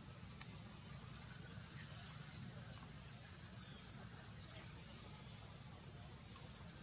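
Faint outdoor background with a low steady hum, and two short high chirps, one about five seconds in and another a second later.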